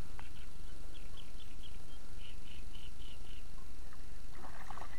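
A quick series of short, high animal chirps, about three a second, then a brief buzzy rattling call near the end, over a steady low rumble.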